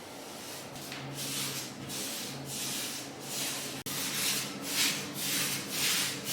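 Paintbrush stroking paint onto a ceiling: a run of rhythmic swishing strokes, about two a second, over a faint low hum.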